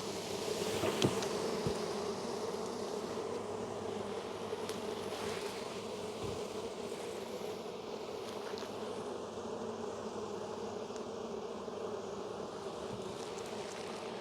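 Honey bees buzzing in a steady, continuous hum from an open, heavily populated hive, with a few faint clicks.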